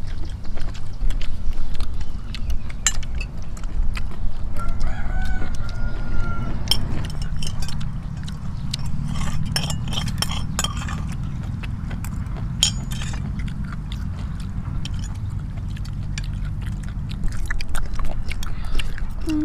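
A rooster crows once, a held call of about two seconds starting about four and a half seconds in. Throughout there is a steady low rumble with scattered sharp clicks.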